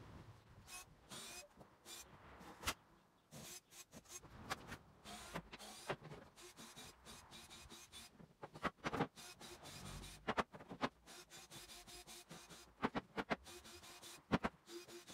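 Faint, scattered knocks and scraping of wooden scaffold boards being handled and shifted, heard at a distance up on the scaffold; the louder knocks come in small clusters late on.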